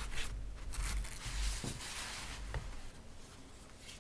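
Rustling and handling noise as a painting on paper or board is moved and swapped, with a few soft low bumps, settling down after about two and a half seconds.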